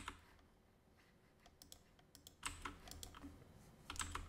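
Faint clicking of computer keyboard keys and mouse buttons: short sharp taps in small clusters, with a burst at the start and another near the end.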